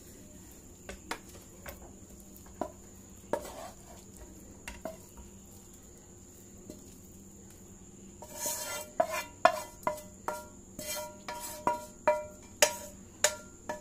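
Spatula scraping and tapping against a non-stick frying pan as fried idli pieces are pushed out onto a plate. A few light taps come in the first half. From about eight seconds in there is a quick series of sharp metallic knocks and scrapes with a ringing tone, about two a second.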